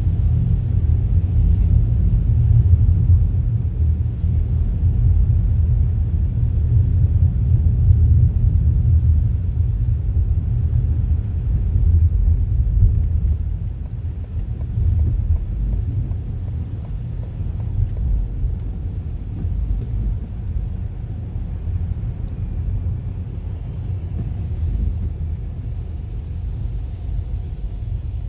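Low, steady rumble of a car driving: engine and road noise, easing a little about halfway through.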